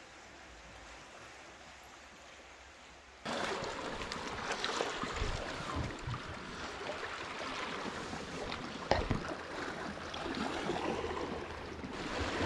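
Sea water washing on rocks, faint at first, then much louder after an abrupt cut about three seconds in, with a few short thumps, the sharpest about nine seconds in.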